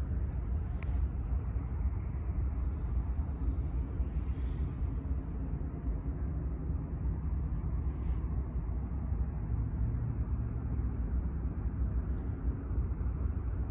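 Steady low outdoor rumble, with a few faint, brief higher sounds over it.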